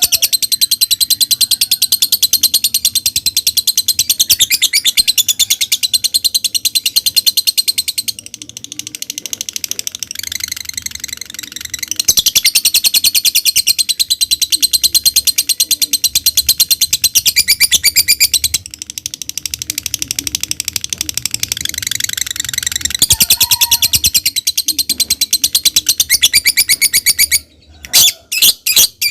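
Lovebird ngekek: long runs of very rapid, shrill chattering notes lasting several seconds each, broken by softer chatter. Near the end it switches to separate sharp chirps, a few a second, like the 'ngetik' typing call.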